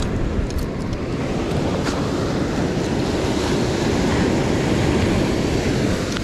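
Ocean surf washing ashore, a steady rushing that swells a little midway, with a few faint clicks.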